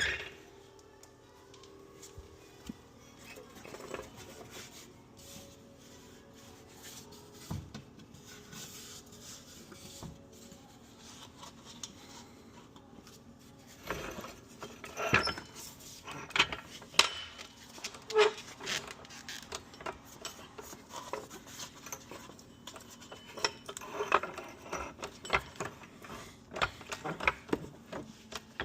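Intermittent metal clinks, scrapes and rattles of hand tools and wheel hardware being handled during a wheel change, sparse at first and busier and louder from about halfway, over a faint steady hum.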